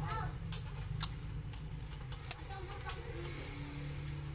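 Light handling noises of a strip of clear tape over a cracked phone screen, with three sharp clicks, over a low steady hum and faint background voices.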